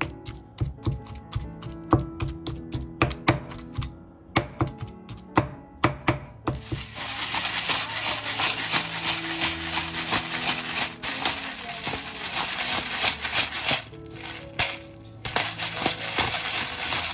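Granite pestle pounding fresh herbs in a stone mortar in rapid, irregular knocks. About seven seconds in, a pepper mill grinding black peppercorns takes over in a long continuous grind, with a second, shorter grind near the end. Background music plays underneath.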